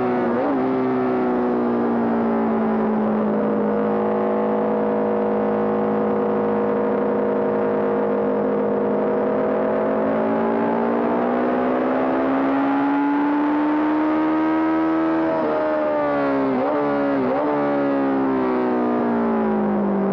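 Honda CB750 racer's air-cooled inline-four engine running hard at race pace, its note sagging slowly, then climbing for several seconds. Near the end the pitch dips sharply twice, then falls away.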